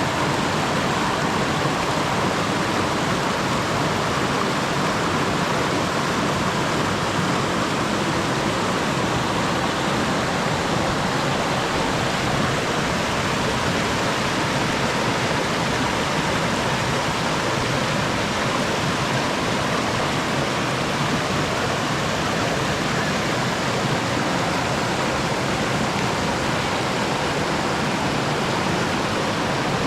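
Waterfall: falling water rushing steadily, an even, unbroken hiss that does not change.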